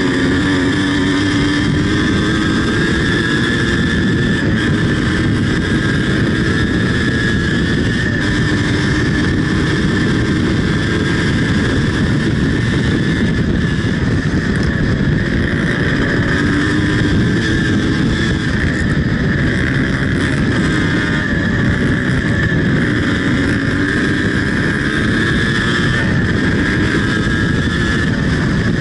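Yamaha DT 180 two-stroke single-cylinder engine running at steady high revs while riding on a dirt road, its pitch drifting slightly up and down, over a dense rush of wind and road noise.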